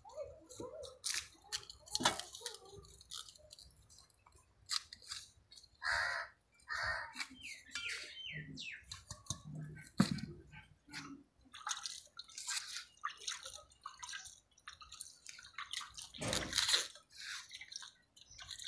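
Scattered clicks, taps and wet squelches of hand food preparation: dough being kneaded with water in a metal bowl and onion being cut with a knife. A few bird chirps come in near the middle.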